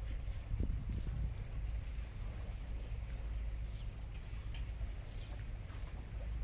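Outdoor ambience: short high chirps that come irregularly, sometimes several a second, over a steady low rumble.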